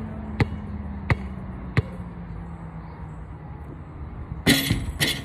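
A basketball bounced three times, sharp slaps about two-thirds of a second apart. After a pause for the shot, the ball hits the metal chain net, which rattles and jingles near the end.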